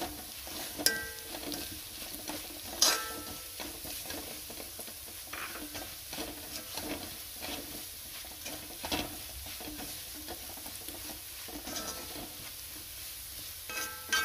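Spoon stirring and scraping shallots, coconut bits and spice powders as they roast in oil in a pan, over a low sizzle: the masala being fried until fragrant. The spoon clanks against the pan twice, about one and three seconds in.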